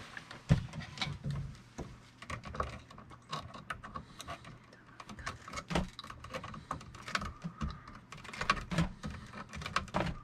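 Bare copper ground wires being handled and twisted together with linesman's pliers at a plastic electrical box: irregular small clicks, taps and scrapes.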